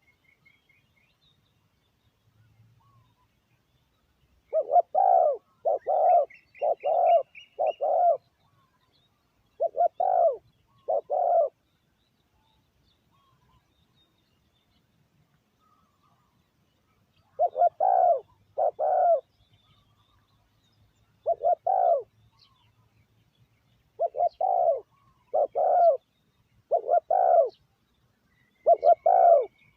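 Spotted dove cooing in repeated phrases of two to four short, low coo notes with pauses of several seconds between phrases. It is a decoy bird calling to draw wild doves in. Faint high chirps from a small bird come near the start and again about 7 s in.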